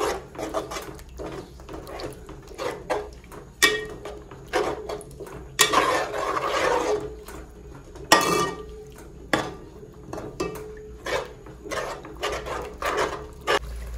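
Spoon stirring and scraping a yogurt-and-spice masala in a cooking pot as it fries, with irregular knocks of the spoon against the pot; the sharpest come at about 4, 6, 8 and 9 seconds in.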